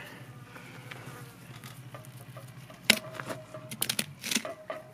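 A fly buzzing close by while a knife is worked along a hanging wild boar carcass's backbone, with a few sharp clicks, the loudest about three seconds in and several more near four seconds.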